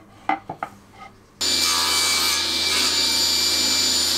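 A few light knocks of the wooden roller being handled, then about a second and a half in a table saw with a crosscut sled is heard running steadily: a loud even motor and blade noise with a high whine and a low hum.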